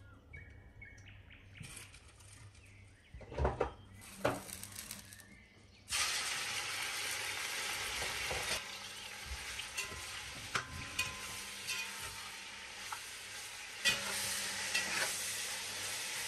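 Pieces of meat frying in hot oil in a large metal pot. It is quiet at first, with a couple of sharp knocks about three to four seconds in. Then a loud, steady sizzle starts suddenly about six seconds in and keeps going, with clicks and scrapes of a metal slotted skimmer stirring the meat against the pot.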